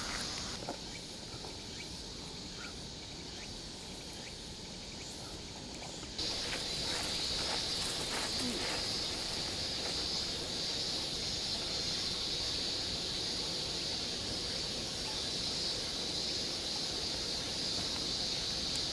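Steady high-pitched chorus of summer insects, with no other clear sound; it gets louder about six seconds in.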